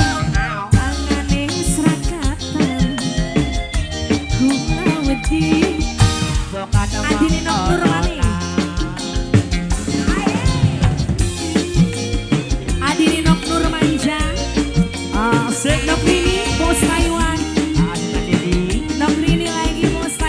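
Live band playing an instrumental passage of a song, with drums and percussion keeping a steady beat under a wavering, gliding melody line.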